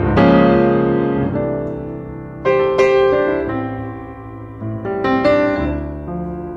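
Background piano music: chords struck every second or two and left to ring and fade.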